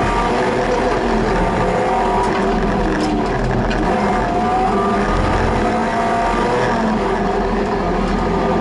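Car engine running hard under load, heard from inside a stripped race car's cabin, its pitch rising and falling as the driver accelerates and lifts through a coned course.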